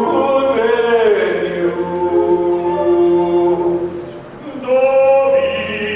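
Voices singing a Yiddish song unaccompanied, in long held and sliding notes. The singing dips briefly about four seconds in, then the next phrase begins.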